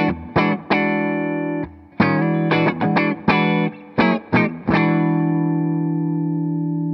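Gibson Les Paul electric guitar through a DC Pedals DC-Comp compressor at full compression with some clean blend mixed in, into a Fender Deluxe Reverb amp: a series of short, choppy funk chord stabs, then a last chord from about five seconds in that is held and rings on with long, slowly fading sustain. The pick attack comes through while the compression still evens out the sustain.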